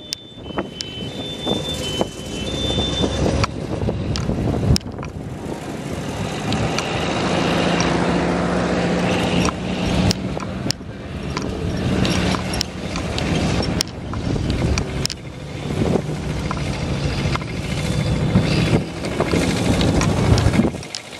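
Engines of old cars and a tractor driving slowly past one after another, with a steady engine hum building in the middle and again near the end, and scattered sharp clicks.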